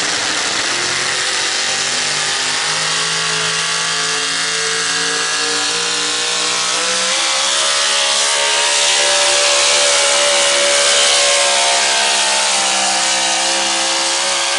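Modified 4x4 pulling truck's engine running at high revs at full throttle while pulling the sled, holding a steady high note that swells slightly about halfway through.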